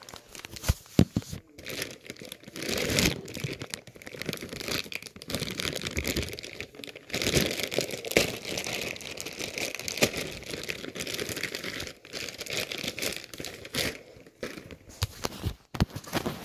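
Clear plastic bag crinkling and rustling as it is handled and pulled open, in uneven bursts full of sharp crackles.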